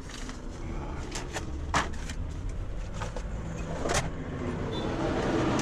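Keys being handled: a few sharp clicks and taps over a steady low rumble.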